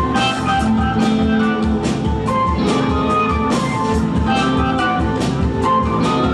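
Live band playing an instrumental passage: electric guitar, upright double bass, keyboard and drums, with steady cymbal strokes over sustained keyboard notes.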